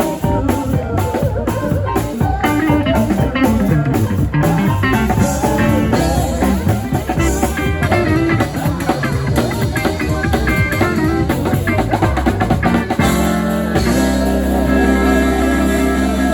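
Music with a steady beat; about thirteen seconds in it changes to held, sustained low notes.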